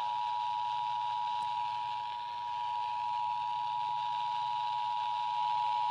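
Emergency Alert System attention signal: the standard two-tone alert, two steady high tones sounded together, received over FM radio with faint hiss underneath.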